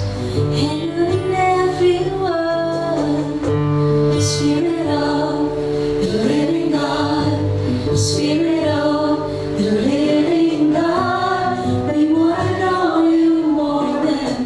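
A slow worship song: a woman's voice singing a melody over steady held instrumental chords and a bass line.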